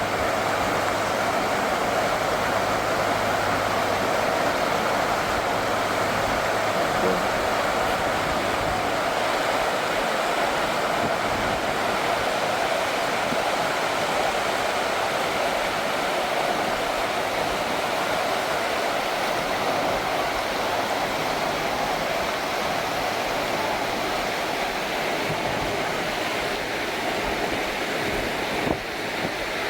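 Steady rush of flowing water, an even hiss that holds at the same level throughout.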